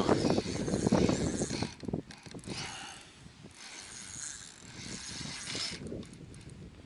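Spinning reel being cranked to wind in line with a foul-hooked fish on, its gears and line roller giving a rapid ticking whir. It is loudest over the first two seconds, then goes on more quietly.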